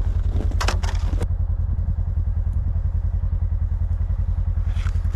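Snowmobile engine idling with a steady low, rapid throbbing. Short clinks and rattles come about half a second to a second in and again near the end.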